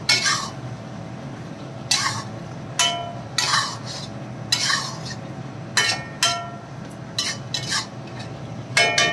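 Long metal spoon scraping and clinking against the sides of a metal karahi, stirring chicken pieces simmering in liquid: about ten separate strokes, some leaving a brief metallic ring, over a steady hiss.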